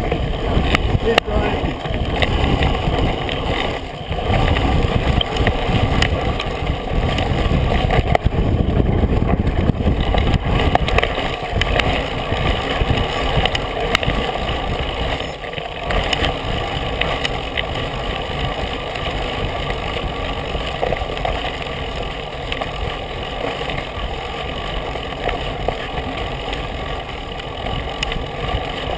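Mountain bike riding fast down a dirt trail: wind rushing over a bike-mounted camera's microphone and the tyres rolling over dirt, with short knocks and rattles as the bike hits bumps.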